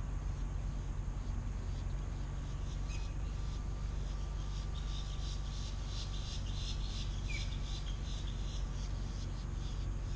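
Insects chirping in a rhythmic high pulse, a few beats a second and loudest in the middle, over a steady low outdoor hum. Two short high chirps stand out.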